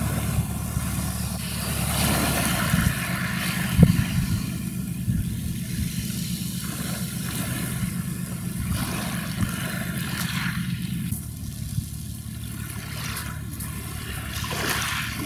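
Steady low drone of the dredger UKD Orca's diesel engines as the ship passes close, with a haze of wind and water noise over it. A single knock sounds about four seconds in, and the engine drone weakens after about eleven seconds as the stern moves off.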